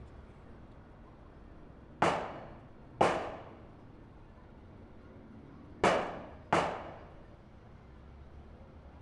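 Four gunshots in two pairs: two about a second apart, then about three seconds later two more in quick succession. Each is a sharp crack with a short echoing tail.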